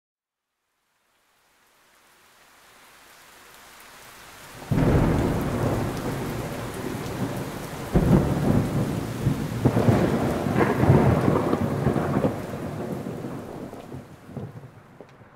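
Rolling thunder with rain, fading in slowly, then breaking into two sudden loud claps about five and eight seconds in before dying away.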